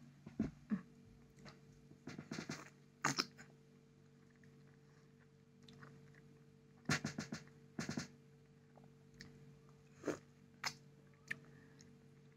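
Biting into and chewing a peeled ripe Amrapali mango: several short clusters of wet mouth clicks, a few seconds apart.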